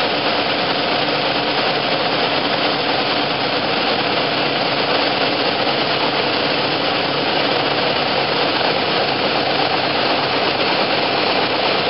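Steady cabin noise of a Piper Cherokee PA-28 on final approach: the piston engine and propeller running under a constant rush of airflow.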